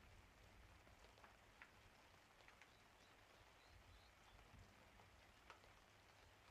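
Faint rain, with a few single drops ticking now and then.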